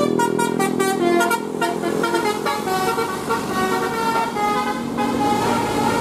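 Basuri-type telolet bus horn, a set of air-horn trumpets, playing a quick melody of short notes that step up and down in pitch, more densely in the first couple of seconds, over the passing bus's engine and road noise.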